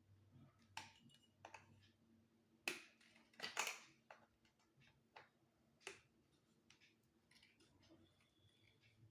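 Faint scattered clicks and light knocks from handling the parts of a flat-packed metal kitchen rack. Two louder handling noises come about three seconds in, the second longer and rougher.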